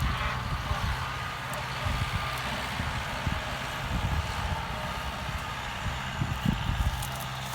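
Kubota M9540 tractor's diesel engine running steadily under load while its rotary implement churns and shreds pineapple plants, with a dense rushing noise and a few low thumps.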